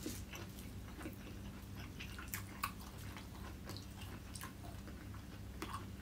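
A person chewing a mouthful of fried rice with soft, scattered wet mouth clicks, and his fingers gathering rice on the plate, over a faint steady low hum.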